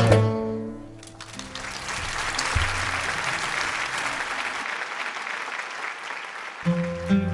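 A jazz band's held closing notes ring out and fade, then an audience applauds for several seconds. Near the end the band starts playing again.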